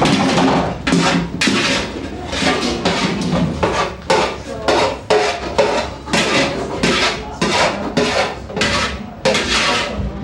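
Repeated clattering knocks and clinks, about two a second, like dishes and utensils being handled.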